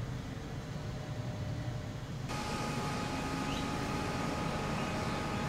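Electric train noise: a steady low rumble. About two seconds in it changes suddenly, and two steady high-pitched hums set in and hold.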